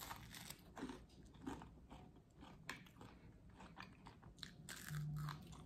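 Close-miked chewing and crunching of food, with short irregular crackly bites. A brief low steady hum about five seconds in.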